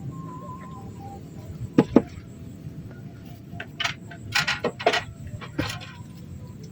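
Two sharp clicks close together, then a run of clinks and rattles a couple of seconds later, like small hard objects knocking together.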